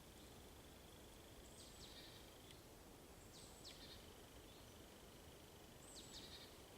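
Faint songbird singing the same short, high phrase about every two seconds, a downward-sweeping note followed by a short buzzy trill, over a steady hiss of background noise and a thin continuous high tone.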